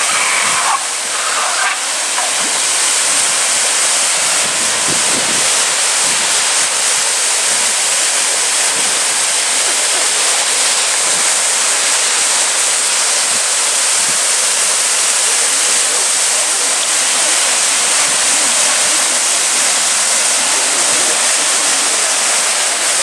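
Waterfall and stream water rushing over rocks in a steady, unbroken hiss.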